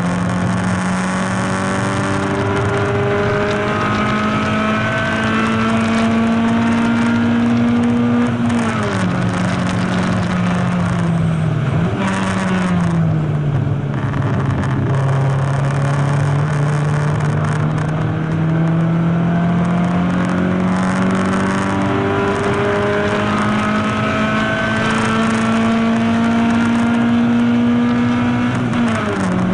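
Race car's engine heard from inside its stripped, caged cockpit while lapping a circuit under load: the pitch climbs slowly for about eight seconds, falls away, dips sharply about twelve seconds in, then climbs steadily again for some fifteen seconds before dropping just at the end. A steady hiss of wind and road noise runs underneath.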